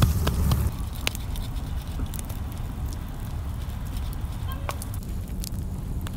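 Wooden pestle thudding rhythmically into a bamboo-tube mortar, stopping under a second in; then a quieter stretch of scattered sharp clicks and crackles from a wood campfire.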